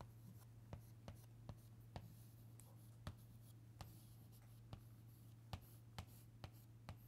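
Chalk tapping and scraping on a blackboard as equations are written: a string of faint, irregular short taps, about two a second, over a steady low hum.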